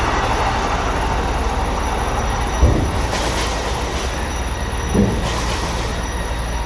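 Heavy engine running steadily with a hiss over it, typical of a fire engine working at a fire; two brief thumps break in, about two and a half and five seconds in.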